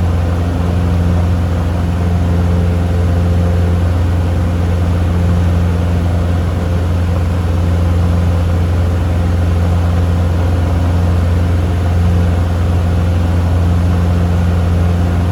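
Cessna 150's Continental O-200 four-cylinder engine and propeller running steadily at takeoff power: a loud, even drone with a deep hum that holds without change.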